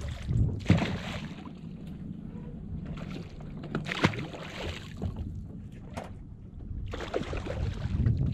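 A hooked mahi-mahi thrashing and splashing at the water's surface in three noisy bursts, near the start, around the middle and near the end, over the steady low rumble of the boat.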